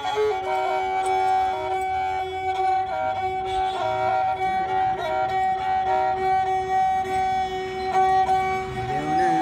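Nepali sarangi, a carved wooden folk fiddle, bowed in a stepping folk melody over a steady held drone note.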